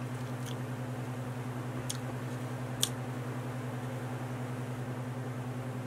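Steady low hum with two level tones, unchanging throughout. Three faint clicks come about half a second, two and three seconds in.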